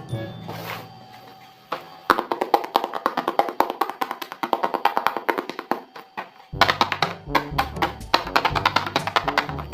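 Background music with a quick run of tapped, plucked-sounding notes; a bass line comes in about two-thirds of the way through.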